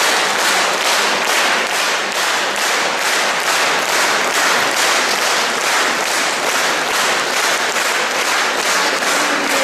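Concert hall audience applauding, clapping together in a steady rhythm of about three claps a second.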